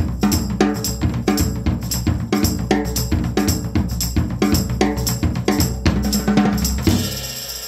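Intro theme music with a driving drum-kit beat of kick and snare over a bass line, easing down near the end.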